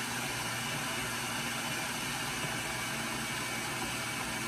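Countertop blender motor running steadily, blending a smoothie of frozen blueberries and strawberries, Greek yogurt and protein powder.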